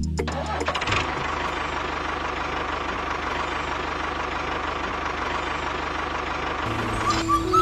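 A tractor engine running steadily with an even low chugging pulse while the mini tractor pulls its plough through sand. Music comes in near the end.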